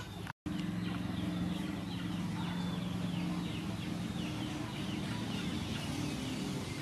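Birds calling: a fast run of high chirps that fall in pitch, over lower, steadier calls. The sound drops out briefly about half a second in.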